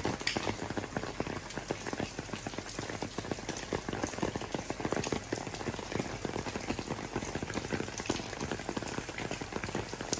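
Rain falling on wet stone paving: a dense, steady patter of many small drops.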